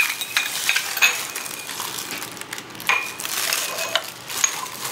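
Ceramic tile samples handled on a granite countertop: sharp hard clinks with a brief ring, near the start, about a second in and about three seconds in, between soft scraping and shuffling of the tiles.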